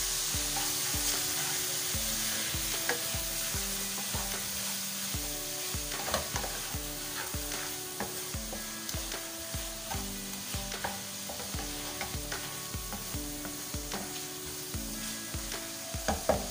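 Chopped tomatoes and ground spices sizzling steadily in hot oil in a pan, while a spatula stirs them, scraping and tapping against the pan now and then.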